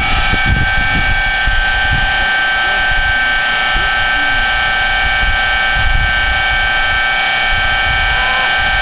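A steady hum made of several high tones held level throughout, over an uneven, gusty low rumble like wind on the microphone.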